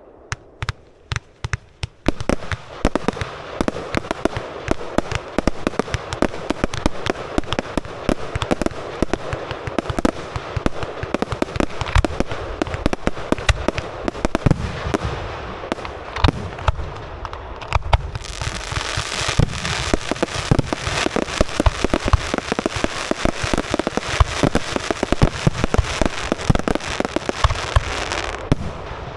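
Fireworks display: a few separate bangs, then a dense barrage of launches, bangs and crackling with no pause. About two-thirds of the way through the crackle thickens into a hissing, rapid-fire wall of reports that eases off just before the end.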